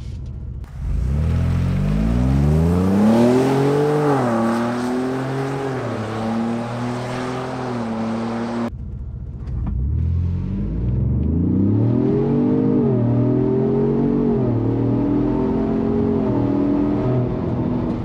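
Ford Bronco's 2.7-litre twin-turbo EcoBoost V6 at wide open throttle through a Magnaflow Overland exhaust. The engine note climbs in pitch and drops at each upshift, then climbs again, with a slightly raspy edge.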